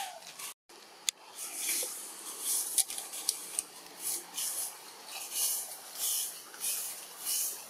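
A high hiss that swells and fades in even pulses, about three every two seconds, with a few sharp clicks; the sound cuts out briefly near the start.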